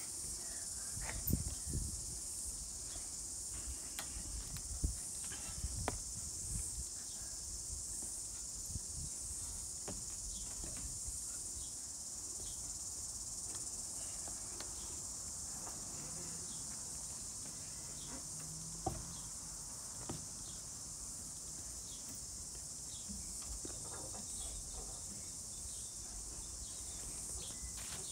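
Steady high-pitched chirring of insects, an even unbroken drone, over a low rumble of wind on the microphone, with a few short faint knocks.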